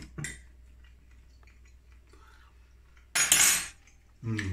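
Cutlery on a plate: a couple of light clicks, then about three seconds in a short, loud scrape, the loudest sound here.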